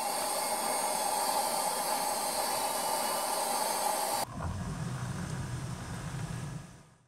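A kettle on a gas burner hissing as it heats. About four seconds in this cuts to a lower rushing sound of hot water being poured from the kettle into a mug, which fades away.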